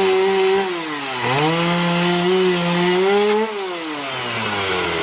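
Gasoline two-stroke chainsaw revved high while cutting into a rotten wooden playground post. The engine eases off about a second in, revs up again, then drops back to idle about three and a half seconds in.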